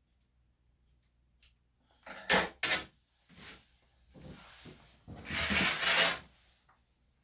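Several bursts of rubbing and scraping, the loudest near the middle and a longer one about a second long near the end.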